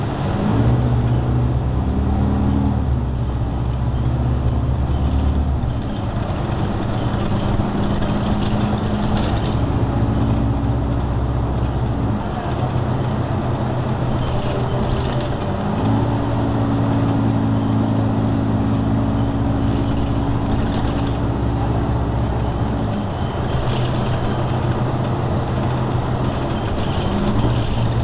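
New Flyer XD60 articulated diesel bus driving, heard from inside the cabin: a low engine drone that shifts in pitch in steps every few seconds, over steady road noise.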